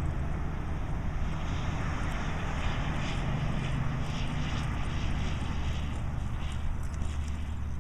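A steady low engine drone, with a horse's hoofbeats on arena dirt coming through in the middle as the horse lopes close by.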